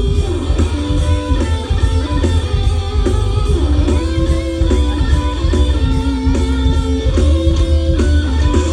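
Live rock band playing an instrumental passage: electric guitar carrying the melody over bass guitar and drums, with no singing.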